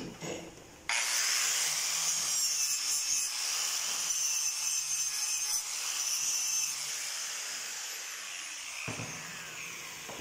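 Electric angle grinder with a knotted wire wheel brushing a fresh flux-core weld on steel tube, cleaning off the slag. It starts abruptly about a second in, runs as a loud, harsh hiss, then is switched off and winds down with a falling whine over the last few seconds, with a knock near the end as it is set down.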